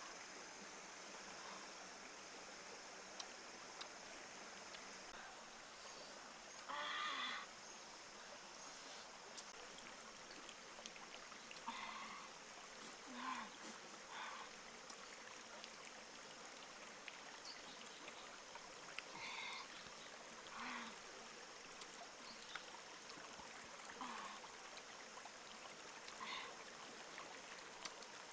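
Faint, steady trickle of a shallow rocky stream, with a few short separate sounds scattered through it.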